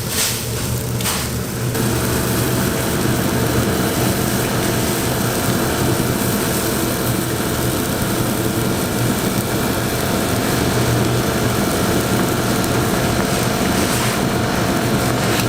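Steady roar of a gas wok burner under a pan of egg fried rice, with a low hum and a fine sizzle underneath. There are two sharp knocks in the first second or so, then the roar settles and runs on evenly.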